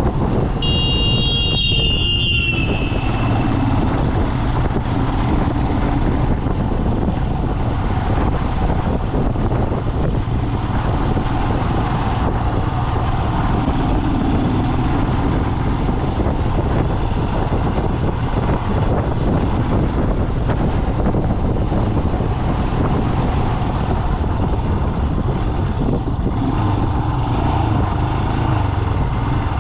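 A road vehicle driving on, with steady engine and road noise. There is a brief high-pitched tone near the start that falls slightly as it ends.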